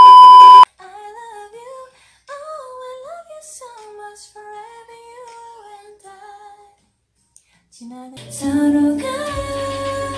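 A loud, steady test-card beep for under a second at the start. Then a woman sings a soft melody unaccompanied for about six seconds; after a short silence, from about eight seconds in, a woman sings into a microphone over a backing track.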